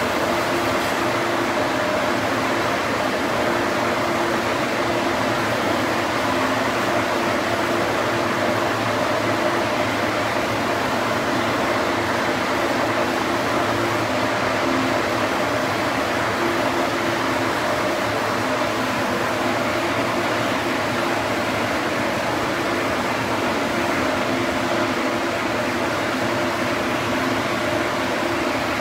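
Steady machine drone in a chassis-dyno room, with a few constant hums and no change in pitch or level: no rev run is under way.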